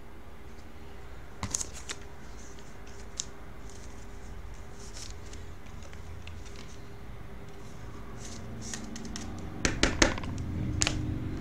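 Trading cards and plastic card holders being handled on a desk: scattered light clicks and rustles, with a cluster of sharper clicks near the end, over a steady low hum.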